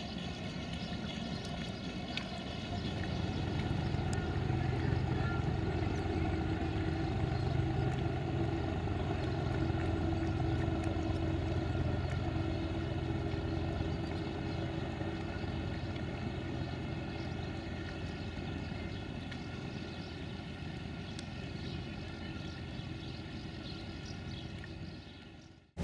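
Engine of a passenger excursion boat running with a steady low hum as it pulls away across the lake. It grows a little louder over the first few seconds, then slowly fades as the boat moves off.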